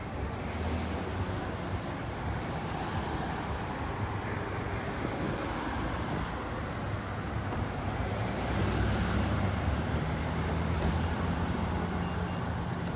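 Orion V diesel transit bus engine running with a steady low drone amid road traffic noise, growing louder about eight seconds in.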